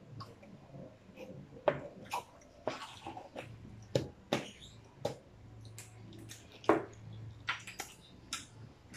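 Eating and table noises: irregular sharp clicks and knocks from drink cups, plastic cutlery and food boxes handled on a table, with a low steady hum starting about halfway through.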